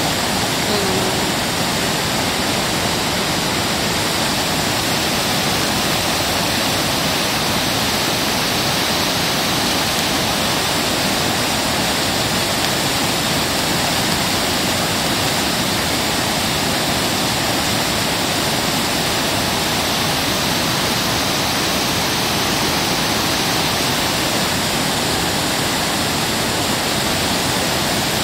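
River water rushing steadily over a low weir, the continuous loud noise of white water tumbling down the barrier.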